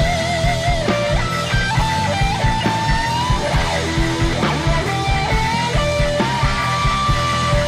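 Instrumental rock music: a lead guitar playing a held, wavering melody over a steady drum beat.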